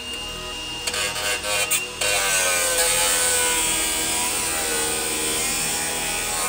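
Angle grinder working against the sheet steel of a car's inner wheel arch. About two seconds in it bites into the metal and gets louder, its whine dropping in pitch and then holding steady under load.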